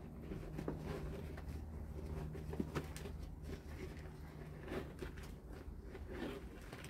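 Faint scraping and light taps of garden soil being scooped out of a bin, with one sharper knock about two and a half seconds in, over a low steady hum.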